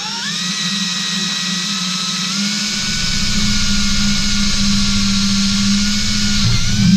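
Electric drill motor spinning up and running steadily as it drills holes in a winch backing plate, with a high whine; the pitch steps up slightly about two seconds in and sags just before the drill stops near the end.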